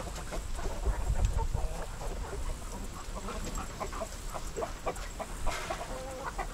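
Chickens clucking: a steady run of short clucks from several birds, over a low rumble.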